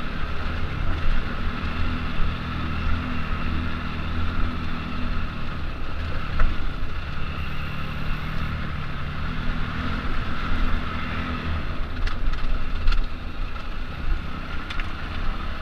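Enduro motorcycle engine running at low revs while riding down a rough dirt trail, the engine note swelling twice, with rumbling wind on the microphone and a few sharp knocks near the end.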